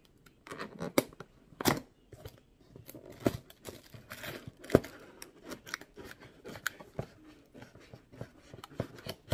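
Cardboard product box being handled and opened by hand: an irregular run of sharp clicks and taps of cardboard, with a short rasping, tearing stretch about halfway through.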